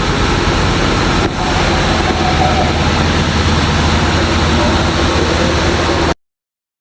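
Sawmill saw and its machinery running loud and steady, with a constant low hum under a dense noise of cutting timber. It cuts off suddenly about six seconds in.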